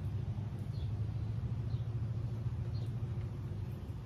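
Steady low rumble with a few faint, short high chirps over it.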